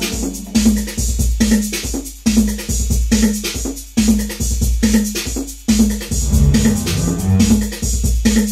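Detroit techno played live on a Roland TR-808 drum machine and a Roland Jupiter-6 synthesizer: a steady drum-machine beat with deep bass hits under a repeating synth figure.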